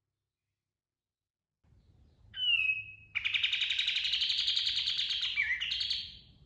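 Kapas tembak songbird singing: after a silent gap, one short, sharp whistled note, then a long rapid trill of about three seconds that climbs slowly in pitch and breaks into a lower and then higher note near the end.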